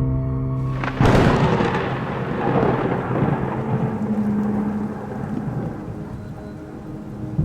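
A sudden thunderclap about a second in, rumbling and fading over several seconds into steady rain. It cuts off a held low music drone.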